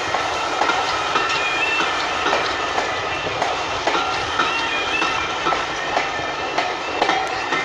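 Passenger coaches rolling past a level crossing, a steady rumble with the wheels clicking over the rail joints about twice a second. A tone stepping between two pitches sounds now and then in the background, like a level crossing's warbling alarm.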